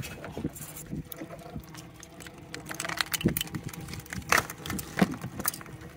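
Irregular knocks and light clinks of crab-pot gear being handled on a boat deck over a low wind rumble, with a few sharper knocks in the second half.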